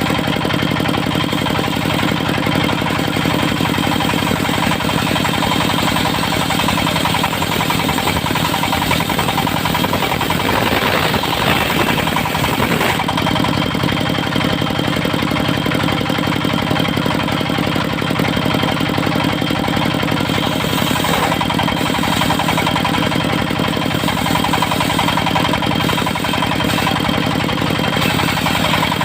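Engine of a mobile circular sawmill running steadily under load, with a noisier stretch about ten to thirteen seconds in as the blade saws through teak.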